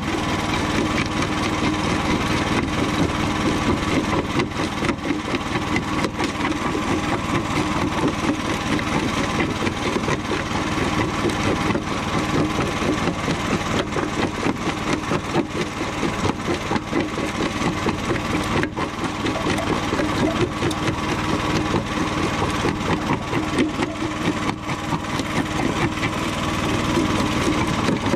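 Homemade jaw crusher working on chunks of concrete: its engine runs steadily while the jaws crunch and crack the concrete, with many sharp irregular knocks of breaking stone.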